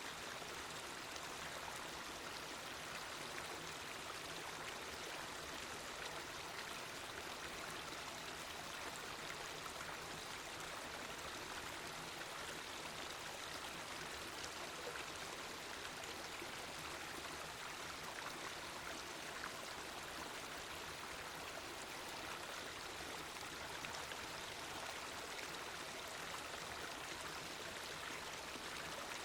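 The Katsura River flowing steadily: an even, unbroken rush of water.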